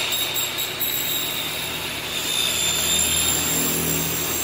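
Maktec miter saw running with a steady high whine as its blade cuts through an aluminium window-frame profile.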